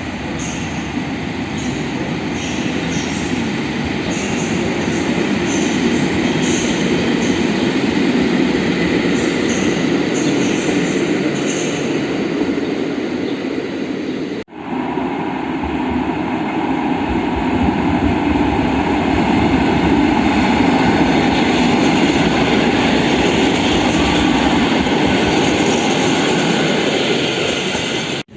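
Polregio regional passenger train running on the track, with a steady rumble of wheels on rail. Short high squeaks recur through the first half. The sound cuts out for an instant about halfway through and then carries on.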